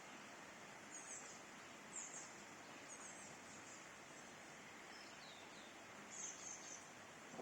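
Faint steady outdoor hiss with a handful of short, high-pitched bird chirps about a second apart.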